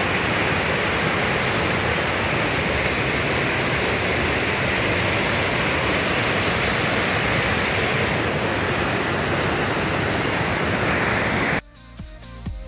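Steady, unbroken rush of falling water from a waterfall or rapids. It cuts off abruptly about a second before the end, where quieter electronic dance music with a beat comes in.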